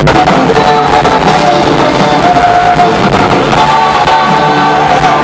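Live rock band playing loud through a venue PA, with guitars, drums and a singer holding long notes.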